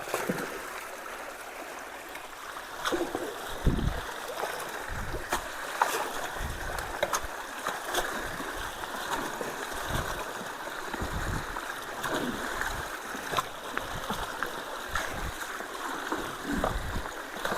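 Water rushing steadily through a roadside culvert and creek, with scattered sharp splashes and knocks and irregular low thumps on top.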